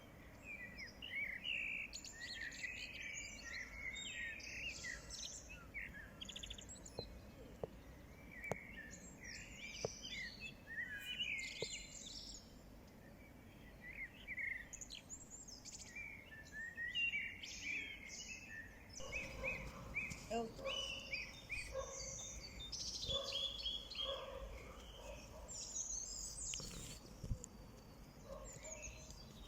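Several birds chirping and singing in quick, overlapping calls over a low steady background noise, with a lower, repeated call joining in over the last third.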